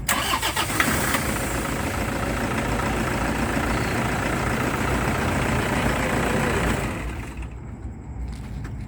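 Toyota Vigo pickup engine starting on its rebuilt starter motor and running, a sign the no-crank fault is cured. The sound comes in suddenly and loud, then settles to a quieter steady run about seven seconds in.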